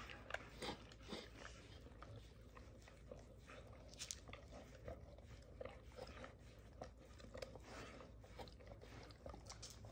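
Basset hound licking out an empty ceramic food bowl: faint, irregular small clicks and taps of tongue and muzzle against the bowl.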